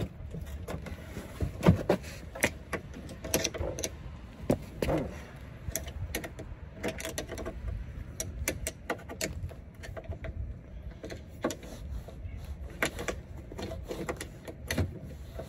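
Irregular metal clicks and scrapes from a thin tool prodding at a truck's door handle and latch, working to free a stuck handle. A low rumble sits under the clicks.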